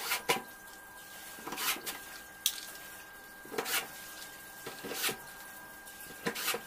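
Cordless drill-driver running in short bursts, about five over the few seconds, as screws are driven into the back panel of a clothes dryer, with a sharp click between them.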